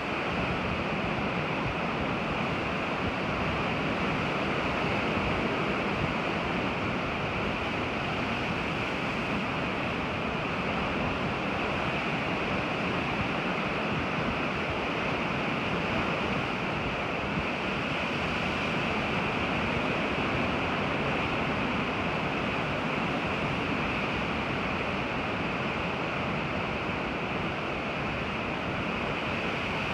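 Ocean surf breaking on the shore, a steady, unbroken rush of water noise with no single wave standing out.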